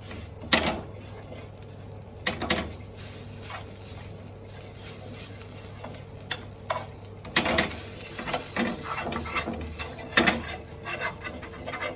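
Ginger, carom seeds and fennel sizzling in ghee in a non-stick frying pan, being stirred with irregular scrapes and knocks of the utensil against the pan as the mixture is roasted dry.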